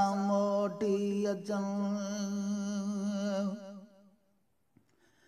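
A male voice singing a song in Sindhi, holding one long wavering note that fades out about four seconds in, followed by a short silence.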